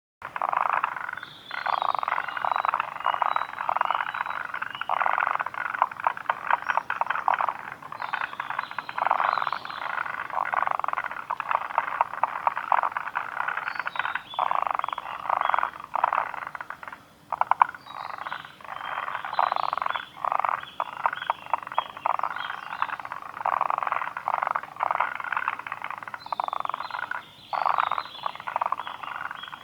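Forest green tree frogs calling: dense runs of rapid, pulsed croaks that overlap, with brief pauses every few seconds.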